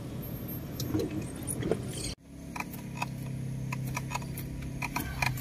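Car cabin while driving: a low rumble with scattered light clicks and rattles, which drops out abruptly about two seconds in and comes back as a steadier low engine hum with frequent sharp ticks and rattles.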